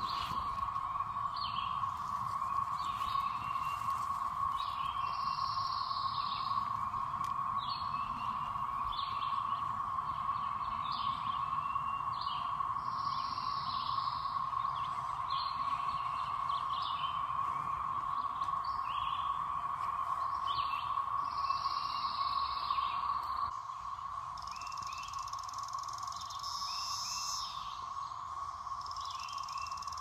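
Chorus of 17-year periodical cicadas: a steady, unbroken drone from many insects calling at once. Shorter, higher calls repeat every second or two over it, and about two-thirds of the way through the drone drops slightly in level as a steady higher whine comes in.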